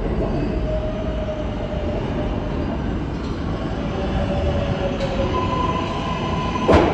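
Subway train running through the station: a steady rumble with a faint wheel squeal that slides slowly lower, a higher steady tone coming in about five seconds in, and sharp clacks of wheels over rail joints near the end.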